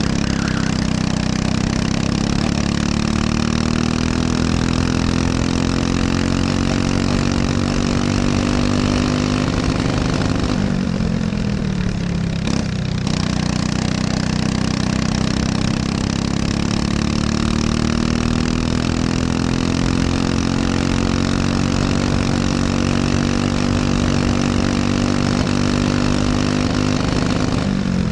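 Briggs & Stratton LO206 single-cylinder four-stroke kart engine at race pace, heard onboard: the revs climb steadily, drop sharply as the driver lifts off for a corner about ten seconds in, then climb again and drop once more near the end.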